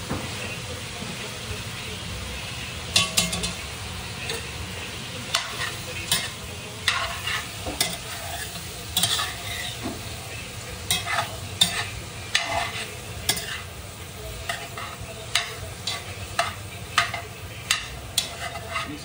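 A metal spoon stirs chopped sausage and chicken in a cast-iron Dutch oven, with frequent irregular scrapes and clinks against the pot from about three seconds in, over a steady sizzle of the meat frying.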